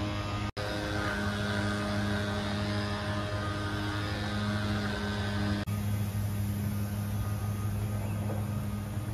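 Steady low hum of several held tones, unbroken except for a brief dropout about half a second in.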